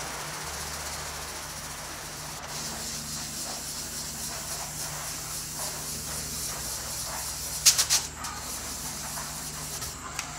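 French-polishing rubber, a linen-covered pad charged with shellac and pumice, rubbed in circles over a veneered wood panel: a soft, steady scrubbing hiss as the pumice cuts back the surface and fills the grain. A few sharp clicks come about eight seconds in.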